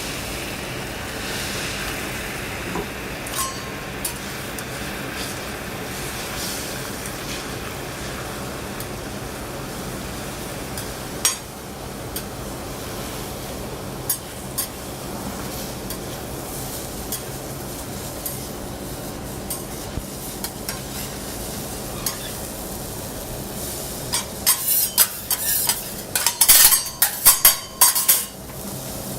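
Rolled omelette cooking in a pan: a steady sizzle of frying egg with the scrape and click of utensils working it. There are scattered sharp clicks, then a run of loud metal clatters and clinks near the end.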